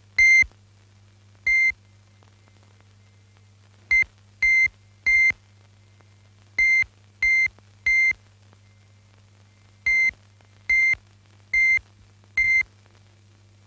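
Electronic beeps, all at one high pitch: twelve short tones in uneven groups, over a faint steady low hum.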